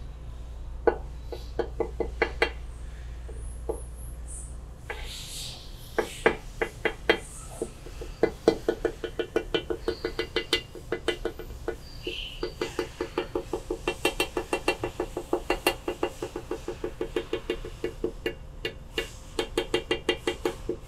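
Rapid light tapping and clicking as a sealant applicator is dabbed along the aluminium crankcase mating surface. A few scattered taps at first, then a quick even run of several taps a second from about six seconds in.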